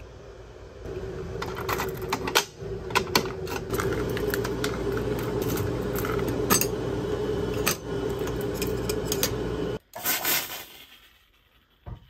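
Keys jangling and clicking against a metal fire alarm pull station as a key is worked in its reset lock, over a steady low tone and hum. Everything cuts off suddenly near ten seconds in, followed by a brief burst and then near quiet.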